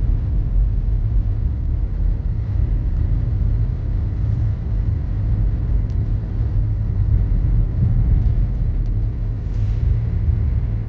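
Steady low rumble of a car driving, with road and engine noise.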